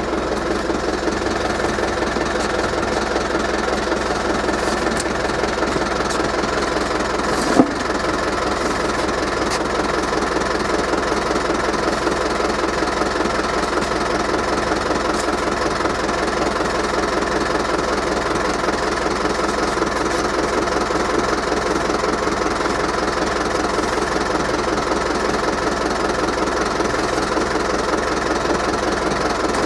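Forklift engine running steadily, supplying hydraulic power to a folding log splitter mounted on its forks. One sharp knock a quarter of the way in.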